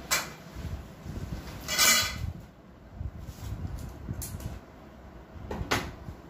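Automatic tent's fabric rustling and swishing as it is pulled and spread out by hand, with a few short sharp swishes, the loudest about two seconds in.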